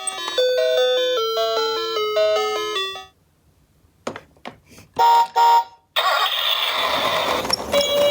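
A short chime-like jingle of stepped notes, then a pause, a few clicks and two loud electronic beeps. After that a toy ambulance mini car's electronic siren sound starts over a rattling noise.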